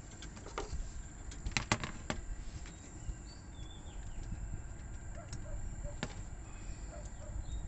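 Sharp clicks and taps from handling a giant freshwater prawn and its fishing rig: a quick cluster about one and a half to two seconds in and a single click about six seconds in, over a steady low rumble.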